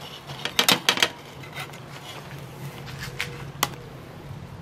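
Scattered light clicks and ticks from a just-cooked Jiffy Pop foil pan on its trivet: a quick cluster about a second in, then a few single ones, over a faint low hum.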